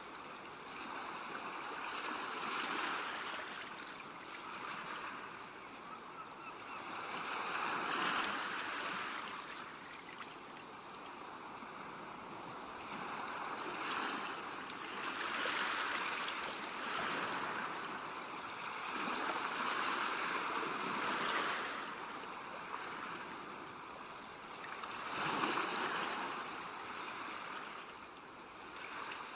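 Calm seashore: small waves breaking and washing up the shore, each one swelling and falling away every few seconds.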